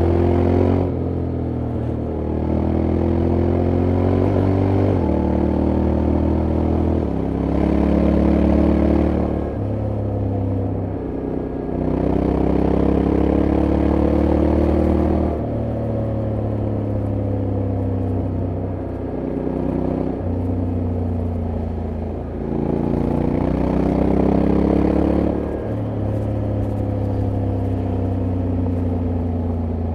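Honda X-ADV 750's 745 cc parallel-twin engine under way. It climbs in pitch through several pulls, drops in steps as the DCT gearbox shifts, and falls away in between as the throttle is eased off.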